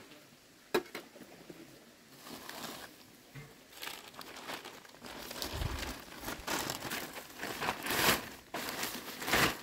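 Large clear plastic sheet crinkling in repeated bursts as it is unfolded and spread out flat on concrete, loudest near the end. A single sharp knock comes just under a second in.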